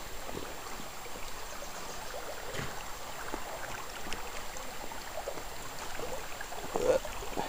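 Shallow creek water running steadily over a pebble bed.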